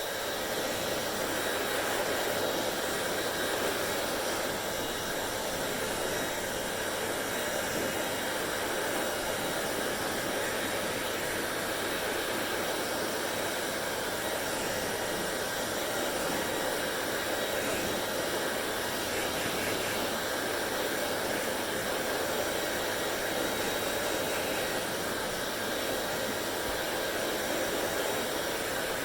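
Hand-held hair dryer running steadily, an even rush of blown air with a faint steady whine over it.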